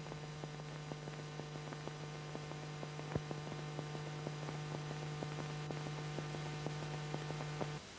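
Steady electrical hum with faint, evenly spaced ticks, the background noise of an old analogue tape or film soundtrack transfer. The hum cuts off suddenly near the end.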